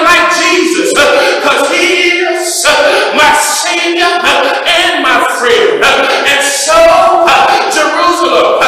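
A man singing into a hand-held microphone, with long held notes that slide between pitches.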